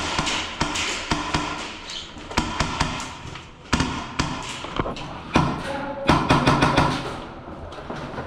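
A string of irregular sharp taps and thuds, with a denser stretch of muffled voices and knocks in the middle.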